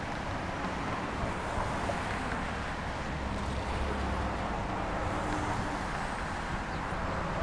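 Steady rumble of street traffic mixed with wind on the microphone.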